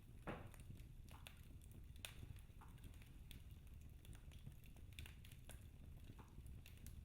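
Faint crackling of a fireplace fire: scattered sharp pops and snaps at irregular intervals over a low, steady rumble.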